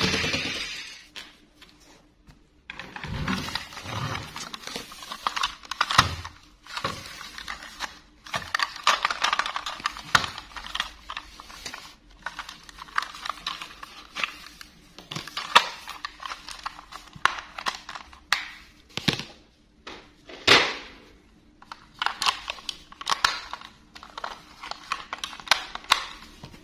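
Plastic toy train handled in gloved hands: irregular clicks, taps and rubbing of hard plastic as it is turned over and its battery compartment is worked.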